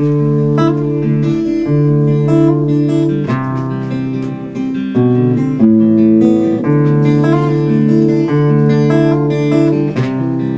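Acoustic guitar playing the instrumental introduction of a song, with ringing chords that change every second or two and no singing yet.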